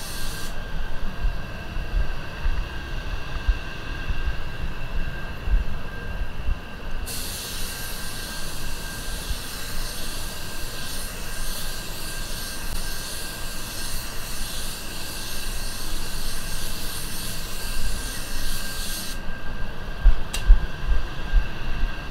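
ANEST IWATA WS400 Supernova 1.3 air spray gun hissing as it sprays base coat, the trigger held for a long pass from about 7 to 19 seconds in and briefly at the very start, over a steady low rumble and hum.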